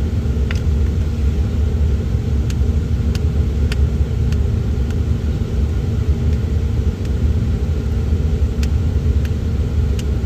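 A steady low rumble with a few faint scattered clicks.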